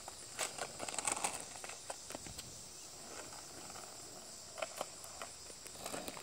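Small plastic skateboard rolling over rough asphalt, with irregular clicks and scuffs from the wheels and a child's shoe pushing off the road. A faint steady insect hum sits high underneath.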